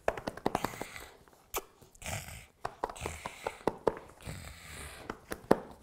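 A puppy playing tug of war with a soft fleece toy: a run of quick clicks and taps, with short noisy rushes of the puppy's breathing and play noises.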